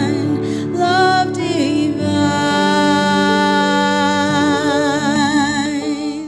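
A woman sings a slow worship song with vibrato, holding long notes over sustained instrumental accompaniment. The music fades out near the end.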